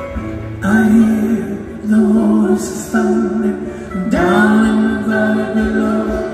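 Live band music with guitars, over which voices sing long wordless held notes in several phrases starting about half a second in, one scooping up in pitch about four seconds in.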